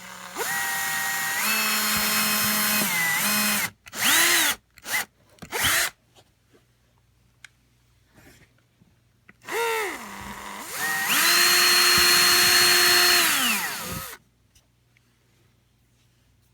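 Electric drill drilling the canard mounting holes, run in spurts: a long run with its whine stepping up in pitch, three short bursts, a pause, then a second long run.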